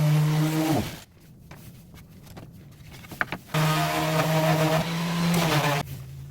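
An electric power tool's motor runs at a steady pitch and winds down about a second in. A few light clicks follow, then the motor runs again for a couple of seconds and cuts off near the end.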